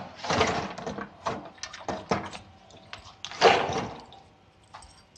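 Two long, heavy, breathy sighs, the second one louder, with a few short clicks between them; the sighs come from an upset young woman.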